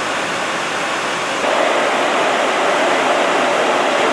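200-horsepower, 1800 RPM electric motor with a Flux Drive sheave coupling running with no load, belts off, for a vibration test: a steady rushing noise that gets louder about a second and a half in.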